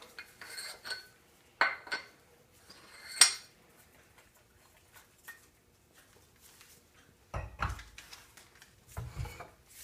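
Metal parts of a 2x72 belt grinder's work rest clinking and knocking as they are handled, with the table plate lifted off its support. A few sharp clinks come in the first few seconds, the loudest about three seconds in, and duller knocks come near the end.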